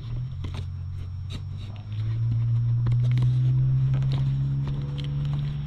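A steady low machine hum made of several pitched tones, which grows louder and steps up in pitch about two seconds in, with a few light clicks and taps over it.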